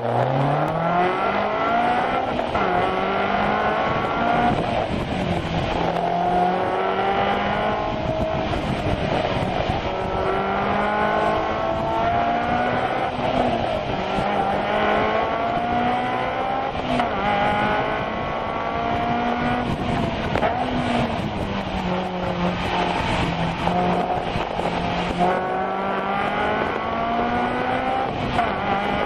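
Honda S2000's four-cylinder engine heard from inside the cabin, driven hard through an autocross course. Its pitch climbs again and again under acceleration and drops back between the climbs, over a steady rush of road noise.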